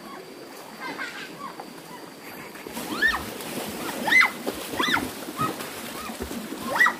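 Repeated short high calls from an animal, each rising and then falling in pitch. They are faint at first and come about once a second from about three seconds in.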